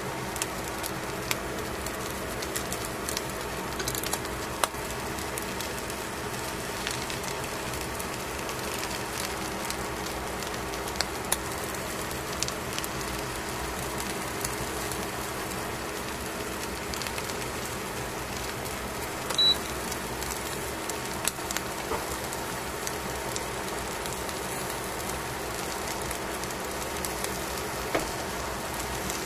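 Fish fillets cooking on aluminium foil in a metal pan: a steady crackling sizzle with scattered small pops, a few louder, over a steady low hum.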